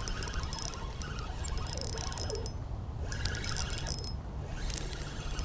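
Fishing reel being cranked against a hooked fish, giving many quick ratcheting clicks from its gears and drag over a steady low rumble.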